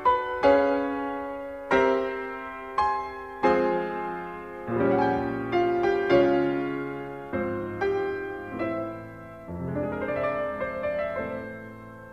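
Background piano music: slow struck notes and chords, each starting sharply and dying away, becoming busier after the middle.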